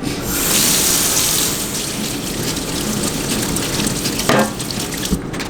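Water running from a tap over a car vacuum cleaner's filter as it is rinsed clean, a steady rush that is loudest in the first second and a half, with a short knock about four seconds in.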